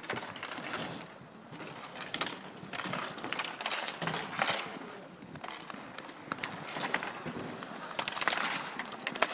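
Inline hockey play on an asphalt court: skate wheels rolling and scraping, with many sharp clacks of sticks hitting the puck and each other.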